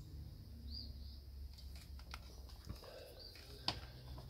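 Quiet handling noise: a few light clicks and knocks as a hot glue gun is picked up and handled over the battery pack, the sharpest click near the end, over a low steady hum. Faint short high chirps come through now and then.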